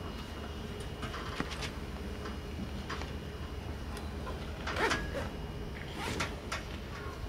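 A Thule Tepui rooftop tent's travel cover being worked by hand at its edge: a few short scrapes and rustles, the loudest about five seconds in, over a steady background hum.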